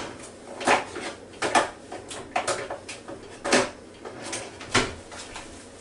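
Kitchen drawer and metal utensils clattering as a knife is fetched: a string of irregular sharp clinks and knocks.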